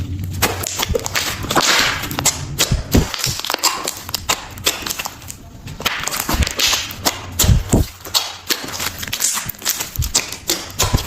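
Slime being squeezed and worked, with many sharp clicks and pops in quick succession and longer squelching smears every second or two.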